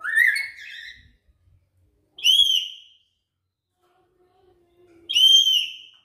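Lory (nuri parrot) giving three loud, shrill, whistled calls a couple of seconds apart, the first rising at its start, the other two arching up and down in pitch.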